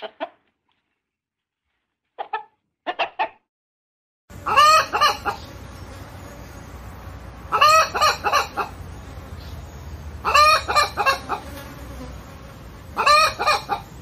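Domestic hen calling: a few short clucks in the first few seconds, then from about four seconds in, four louder bouts of drawn-out, pitched cackling calls about every three seconds over a steady low background hum.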